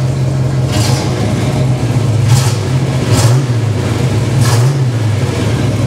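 Holden VC Commodore V8 running through its new exhaust at a steady idle, given light blips of throttle about two, three and four and a half seconds in.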